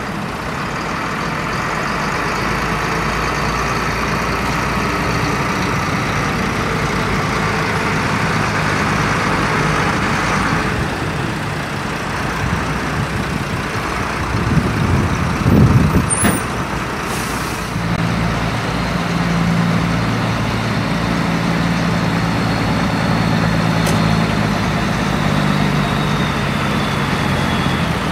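Heavy diesel lorries moving slowly: a steady engine rumble as a lorry towing a fifth-wheel caravan rolls past, with a short loud surge about fifteen seconds in. From about eighteen seconds a second lorry's diesel engine drones steadily as it approaches.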